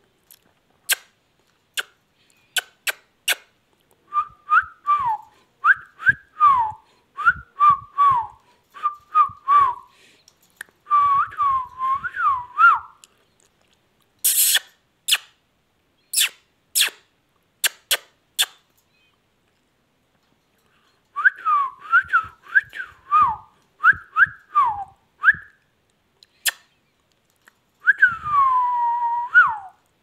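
Whistling in short phrases of up-and-down gliding notes, with sharp clicks scattered between and among them. A quiet stretch of a few seconds near the middle, then more phrases, and one longer falling whistle near the end.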